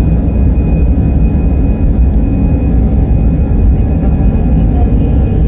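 Passenger airliner's engines running steadily: a deep, continuous rumble with a constant high whine over it.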